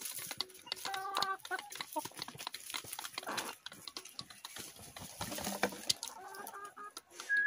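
Free-range hens clucking in short calls close by, among many sharp clicks and rustles from birds pecking, scratching and flapping around the microphone.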